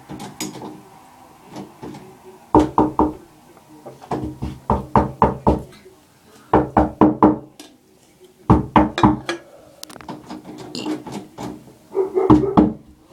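Someone knocking on a door in repeated bursts of three to five quick raps, five bursts in all.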